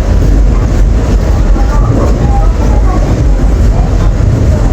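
Subway train running on the track: a loud, steady low rumble with no break.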